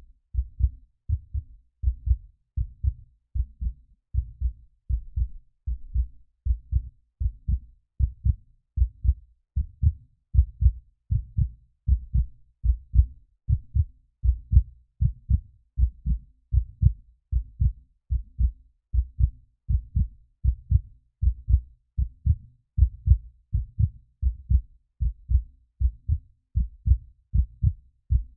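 Simulated heartbeat made by tapping a stethoscope with its earbud pressed to a microphone, low-pass filtered so it sounds muffled and deep. Paired low thumps, a lub-dub, repeat in a steady rhythm.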